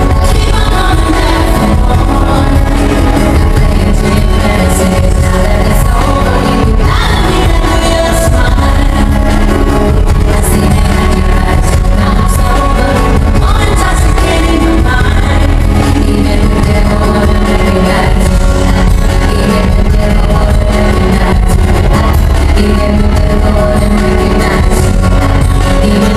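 Live pop concert music with singing, loud and heavy in the bass, heard from among the audience through the arena's sound system.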